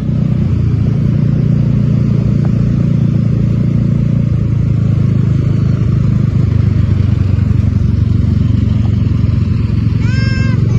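Steady low engine and road rumble of a vehicle on the move. Near the end comes a brief high-pitched call that rises and falls.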